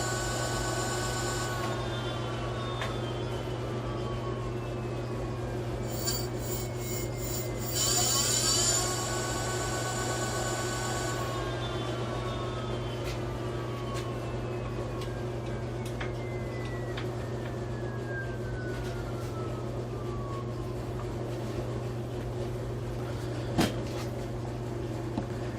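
E-bike's electric motor whining as it spins up under throttle, then coasting down with a slowly falling whine over many seconds. A second throttle burst about six seconds in spins it up again and is followed by another long fall in pitch, over a steady low hum. A single click near the end.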